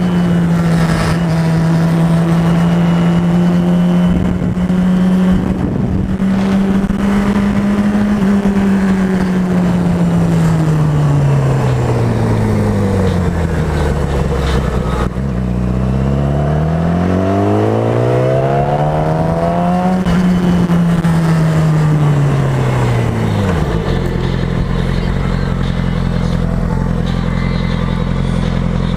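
2007 Yamaha R6's inline-four engine through a Leo Vince aftermarket exhaust, riding at steady revs, its pitch falling as the bike slows and rising again under acceleration, then dropping to a steady idle near the end.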